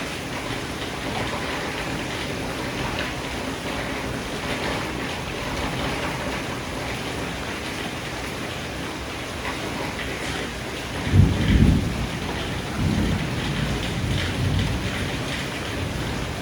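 Steady rain falling through a thunderstorm. About eleven seconds in a thunderclap breaks in, the loudest sound, and rolls on in lower rumbles for a few seconds.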